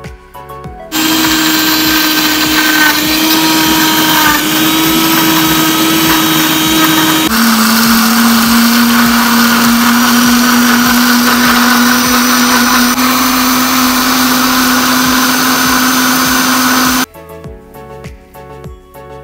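Countertop electric blender running, grinding fresh coriander into a wet green chutney paste. The motor starts about a second in, and its steady hum steps down to a lower pitch partway through. It switches off near the end.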